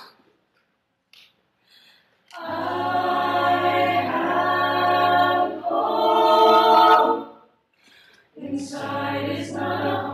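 A cappella group singing in full harmony over a steady low bass note. The group comes in after about two seconds of silence, stops together briefly around seven seconds in, and comes back in about a second later.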